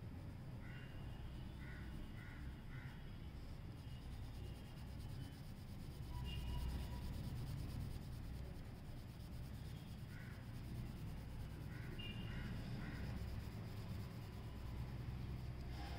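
Pencil lead rubbing on paper as an area is shaded in. Under it, a bird calls in two runs of four short calls, about a second in and again about ten seconds in.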